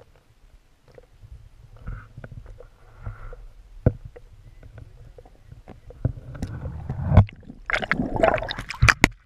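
Water sloshing and knocking against an underwater camera held beneath lake ice, with a low rumble and scattered knocks. About three-quarters of the way in it turns to loud sloshing and scraping as the camera comes up against the ice.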